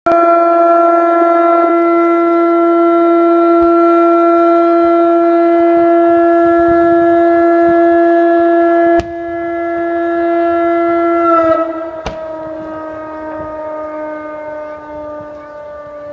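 A siren sounding one long steady wail, dropping in level about nine seconds in and then slowly falling in pitch as it winds down.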